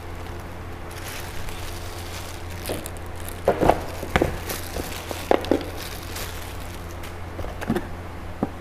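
Packaging handling: a thin plastic bag crinkling as it is pulled off an angle grinder, and the grinder and cardboard box being moved, with several sharp knocks and clicks through the middle and latter part. A steady low hum runs underneath.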